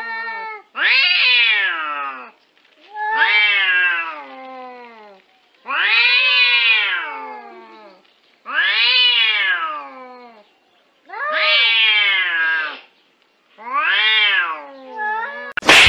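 Two domestic cats yowling at each other in a nose-to-nose standoff: about seven long, drawn-out caterwauls, each rising then falling in pitch, one every two to three seconds. A sudden sharp crack sounds right at the end.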